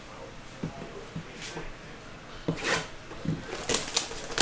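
A foil wrapper from a 2022 Panini Phoenix football card pack crinkles as it is handled and opened, with a few light knocks on the table. The loudest rustle comes about two and a half seconds in.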